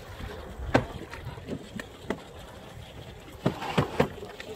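Aboard a small fishing boat: a steady wash of wind and water with scattered sharp knocks and clicks of hull and tackle, one loud knock about a second in and a quick run of three near the end.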